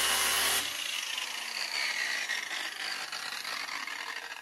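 Corded angle grinder grinding into a rusted steel carriage bolt, cutting off sharply about half a second in; the disc then whirs down in falling pitch as it coasts to a stop.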